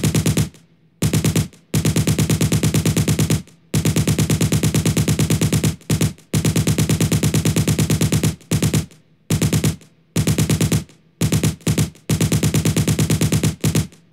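Machine-gun fire in repeated bursts of about ten shots a second, some short and some nearly two seconds long, separated by brief pauses.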